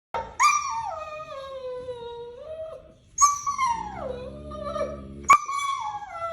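A dog making three long, drawn-out whining howls, each starting high and sliding down in pitch, with a low steady hum under the second.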